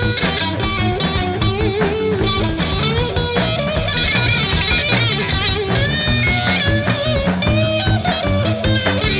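Background music: an instrumental break in a blues-rock song, an electric guitar playing bending notes over drums.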